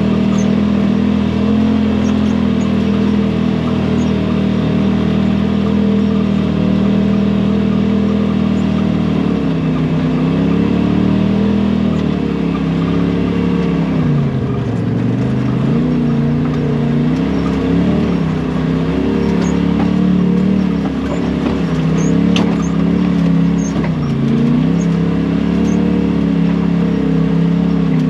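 Side-by-side UTV engine running at a steady pitch, then from about nine seconds in repeatedly dropping and climbing in revs as the throttle is let off and opened again.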